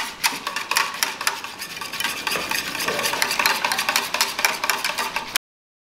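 Wire hand whisk beating milk powder into warm water in a stainless steel saucepan: fast, continuous clicking and scraping of the wires against the pan. It stops suddenly about five seconds in.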